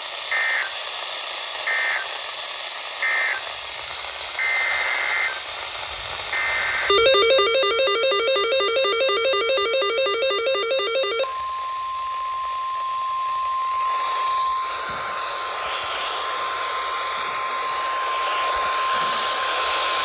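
NOAA Weather Radio alert coming through a Grecom handheld scanner's speaker over a hiss of radio static. A few short high beeps are followed by about four seconds of buzzy SAME digital header data. Then comes the steady 1050 Hz warning alarm tone, held for about nine seconds, which opens a Flash Flood Warning.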